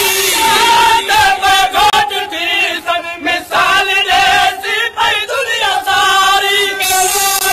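Male reciter chanting a Sindhi noha (Shia lament) through a microphone, with a group of men chanting along in chorus under his voice.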